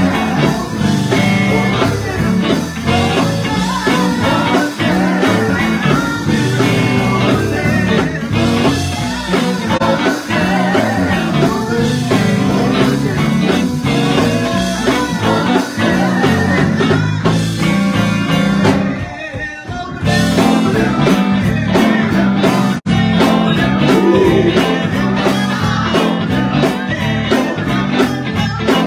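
Live song: a woman singing lead through a microphone over a band with drums, with backing singers. The music briefly drops back about two-thirds of the way in, then comes back in full.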